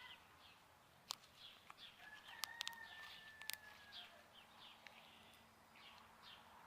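Faint birds chirping, short high chirps repeating a few times a second, with a held whistling note for a couple of seconds and a few sharp clicks.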